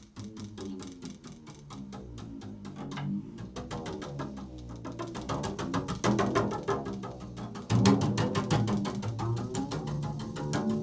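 Improvised instrumental music: low pitched notes over many quick, even attacks, steadily growing louder.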